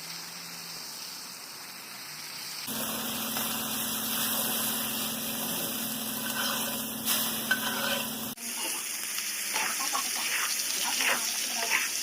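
Food frying and sizzling in a pan, a steady hiss that changes abruptly twice, about 2.5 and 8.5 seconds in, as separate takes are joined. The last part has scattered pops and crackles.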